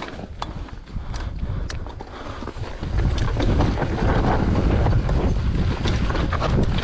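Wind buffeting the action camera of a mountain bike descending a rocky downhill trail, with deep tyre rumble and scattered sharp rattles and clicks from the bike. It gets louder about three seconds in.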